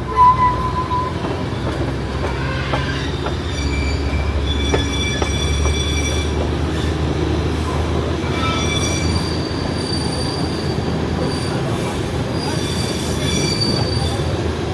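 Darjeeling Himalayan Railway narrow-gauge toy train running with a steady low rumble, its wheels squealing against the rails in high, thin tones that come in several spells. A brief high tone sounds right at the start.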